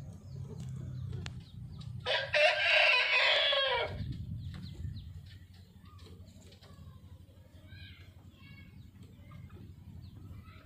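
A rooster crows once, loud, for about two seconds starting about two seconds in. Fainter chicken calls follow a few seconds later.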